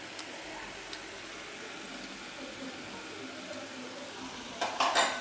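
Rinnai gas stove burner hissing steadily under a small pan of noodle soup simmering on the flame. Near the end comes a short, loud burst of noise lasting about half a second.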